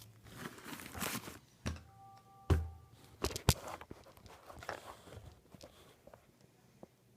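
Paper being handled and folded: rustling and crinkling with a few knocks on a hard surface, the loudest about two and a half seconds in. A brief faint steady tone sounds just before it.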